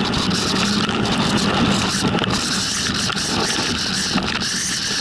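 Steady road and wind noise of a vehicle driving on a wet road.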